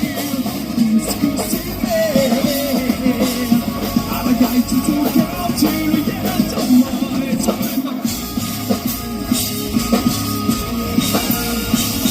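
Live rock band playing: electric guitar and drum kit, with a wavering melody line over the rhythm.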